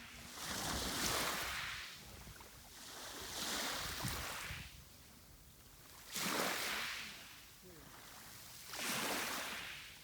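Sea waves washing onto the shore: four rushes of hiss, each swelling and falling away, a few seconds apart.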